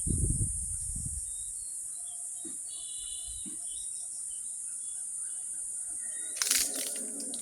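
Steady high-pitched chorus of insects, with short bird chirps scattered through it. Low rumbling thumps in the first second and a brief noisy burst near the end, the loudest moment.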